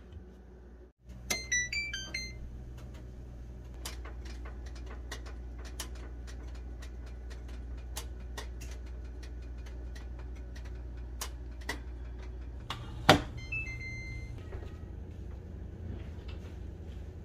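An oven's electronic control panel beeping through a quick run of tones at several pitches as it is set, then a steady low hum with scattered clicks. A loud click about thirteen seconds in is followed by another short run of beeps.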